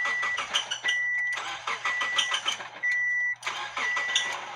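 A 2006 Subaru Forester's engine cranking and starting with difficulty, under the car's warning chime beeping steadily about once a second. The owner puts the hard start down to the sensors and electronics recalibrating after the battery was disconnected.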